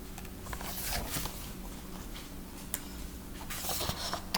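Quiet room tone with a few faint clicks and a soft rustle near the end, from a picture book being handled.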